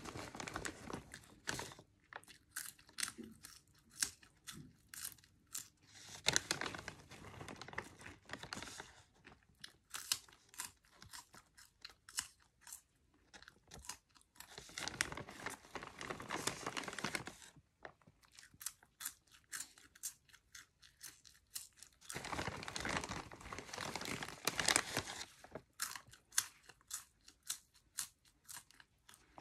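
Close-miked crunching and chewing of cheddar cheese popcorn, in spells of dense crackling a few seconds long with sparser, quieter chewing clicks between them.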